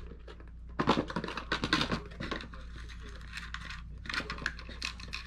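Light clicks, taps and rustles of a hand rummaging among small parts in a clear plastic parts box, in two short bouts, over a faint steady low hum.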